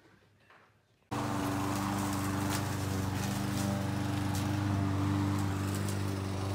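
Near silence, then about a second in a small engine cuts in suddenly and runs loud and steady at an even pitch.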